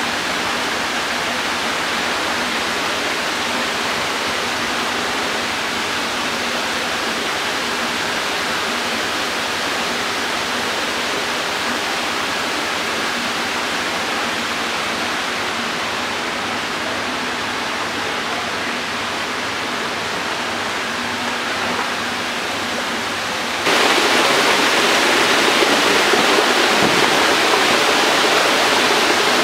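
Steady rush of running water, which becomes suddenly louder and brighter about two thirds of the way through.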